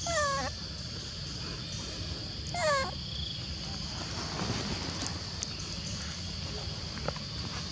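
Young macaque giving two short, high calls that slide down in pitch, about two and a half seconds apart, over a steady high hiss.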